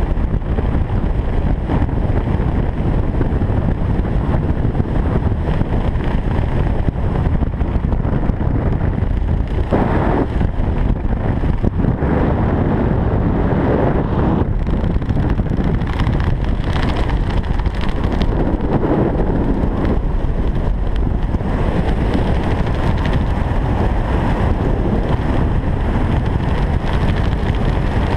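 Wind rushing over the microphone of a skydiver's camera under an open parachute canopy: a steady low rumble, with a few louder gusts swelling around the middle.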